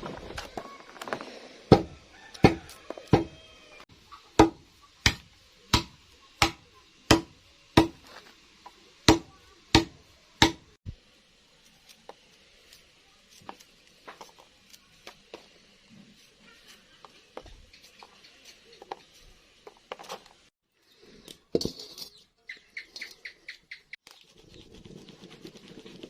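Kitchen knocking: about a dozen steady strikes of a utensil on a hard surface, roughly three every two seconds, then scattered light clicks, one sharp knock and a short quick rattle near the end.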